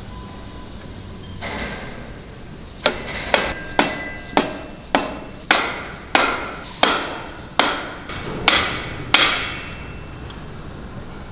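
Hammer striking steel, driving a pivot pin into an excavator tiltrotator's grapple: about eleven sharp blows, roughly two a second, each with a short metallic ring.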